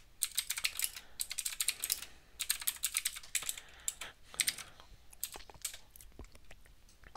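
Typing on a computer keyboard: quick runs of key clicks with short pauses between them, thinning to a few scattered taps near the end.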